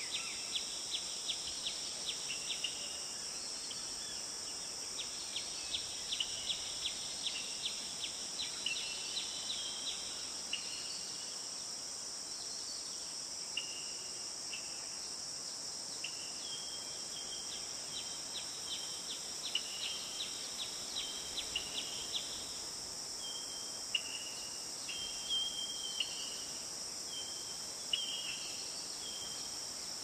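Steady high-pitched insect chorus. Over it come runs of rapid ticking calls in the first ten seconds and again around the twentieth second, and short single-pitched chirps that repeat every second or so in the second half.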